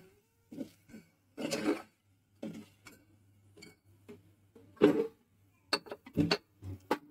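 Steel spoon scraping and clinking against the inside of a metal pressure cooker while stirring fried potato slices, in short scattered strokes, the loudest about five seconds in and a few sharp clinks around six seconds.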